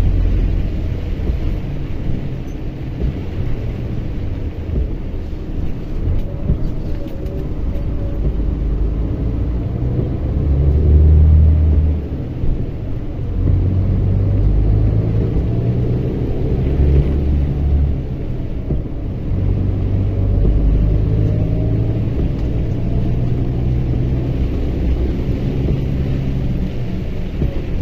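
Mercedes-Benz Axor 2644 heavy truck's diesel engine running under way, a steady low hum with road noise. It swells about ten seconds in, then drops off sharply about two seconds later.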